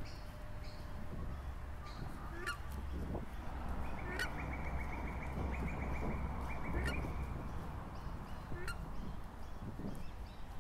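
Birds calling: short sharp calls repeating about every two seconds, with a trill in the middle, over a low rumble.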